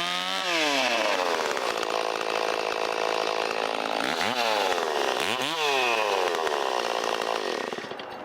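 Stihl 034 two-stroke chainsaw running at high revs while cutting rotten wood. Its pitch swings up and down three times as the throttle and the load in the cut change, then the level drops near the end as it comes off throttle.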